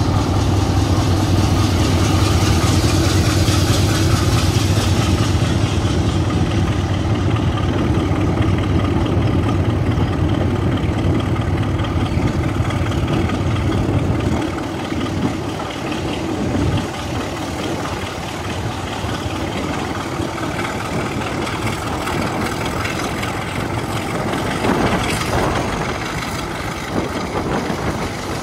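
Class 33 diesel locomotive 33108's Sulzer eight-cylinder engine working under power, a steady deep throb with a hiss of rushing air over it early on. About halfway through the engine sound drops away sharply and the run continues more quietly.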